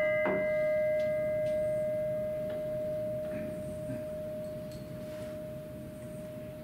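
A bell ringing on after a single strike: one clear tone fading slowly throughout, while its higher overtones die away within the first few seconds.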